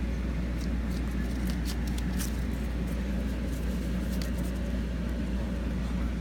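A pet bird's beak clicking and picking at laptop keys: a handful of short, sharp clicks, scattered and irregular, over a steady low hum.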